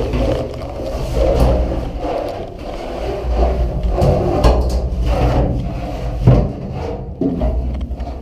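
Rubbing and scraping of a person moving about inside an airplane's fuel tank, with irregular knocks and thumps against the tank structure; the sharpest knock comes about six seconds in.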